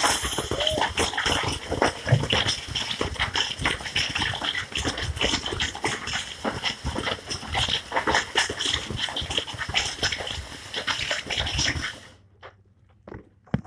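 Rotary duct-cleaning brush on a flexible rod scraping and rattling against the inside of an HVAC duct, a dense irregular clatter with hiss that cuts off suddenly near the end, leaving a few faint knocks.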